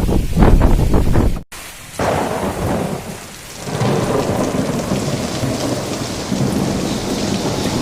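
Monsoon rain pouring steadily. A loud low rumble of thunder fills the first second and a half and cuts off abruptly.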